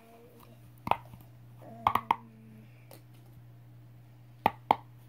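Five short, sharp clicks or pops: one just under a second in, a pair about two seconds in, and another pair near the end, over a steady low hum.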